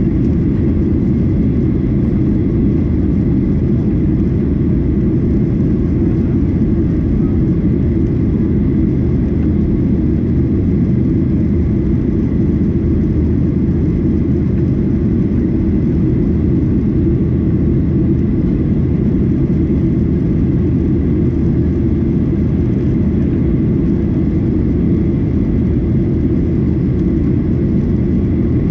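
Steady low cabin noise inside a Boeing 737-800 in flight: engine and airflow noise from its CFM56-7B turbofans, unchanging throughout, with a faint thin steady whine above it.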